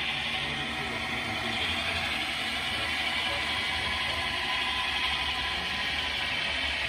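Model Central California Traction diesel locomotive running steadily along the layout track, pulling a train of boxcars, with an even, unbroken running sound.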